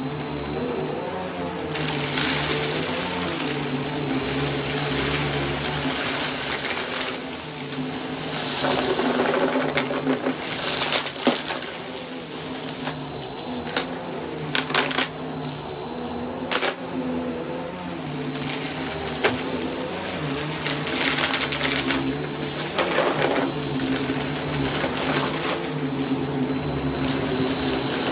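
Bissell vacuum cleaner running with a steady motor hum and whine, broken by repeated surges of crunching and rattling as debris is sucked up, with a few sharp clicks.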